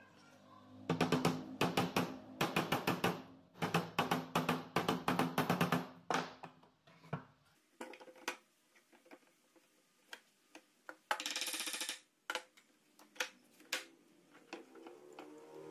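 A fast percussive beat over a low steady tone for about six seconds, then sparse wooden knocks as pine boards are laid flat on pipe clamps, with a short hiss about eleven seconds in.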